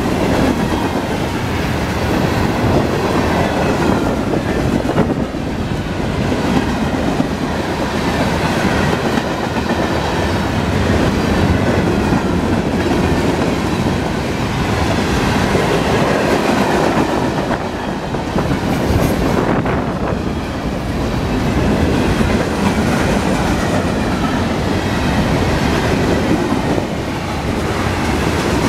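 Freight cars of a Florida East Coast Railway train rolling past at close range: a loud, steady noise of steel wheels on rail that carries on without a break.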